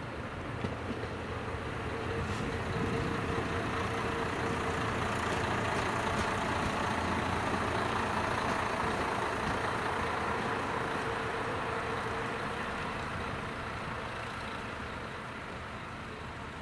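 JR Hokkaido KiHa 54 diesel railcar pulling slowly into the station: its engine and wheels swell to a peak midway as it passes close, then ease off, with a steady high hum through most of it and a click near the start.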